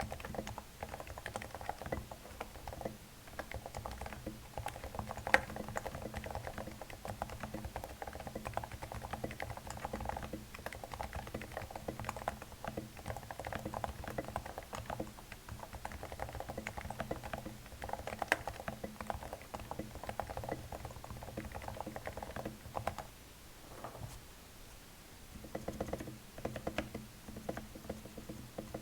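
Continuous typing on a Cooler Master Novatouch TKL keyboard with lubed and silenced Topre switches: a dense run of soft keystrokes that pauses briefly about three-quarters of the way through.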